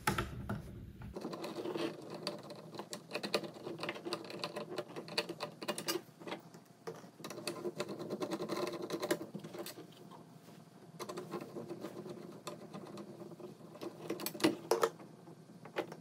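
Screwdriver loosening the screws on a switching power supply's screw terminal block, with many small metallic clicks, scrapes and rattles as the wire connectors come off.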